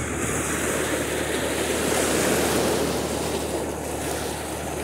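Small sea waves washing in and foaming over shore rocks, the surge swelling about two seconds in and then subsiding.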